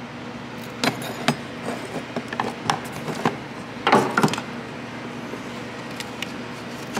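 Scattered metallic clicks and clinks of hand tools and small metal parts being handled around a car battery, with a louder cluster of knocks and rattles about four seconds in.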